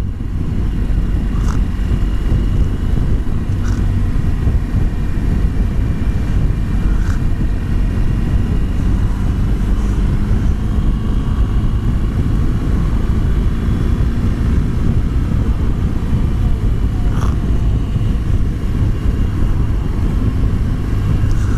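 Riding noise from a BMW R1200GS liquid-cooled boxer-twin motorcycle under way: a steady low roar of wind and engine on a helmet-mounted microphone, with a few faint ticks.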